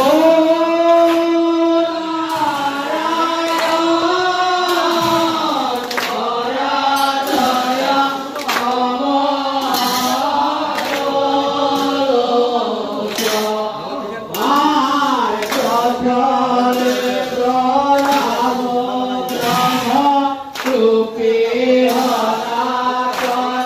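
A group of men singing a devotional chant together in unison, the melody held on long gliding notes, with sharp percussive strikes cutting in now and then.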